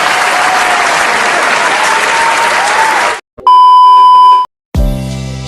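Applause sound effect for about three seconds, followed by a loud steady beep lasting about a second, then a sustained musical chord that begins just before the end and slowly fades.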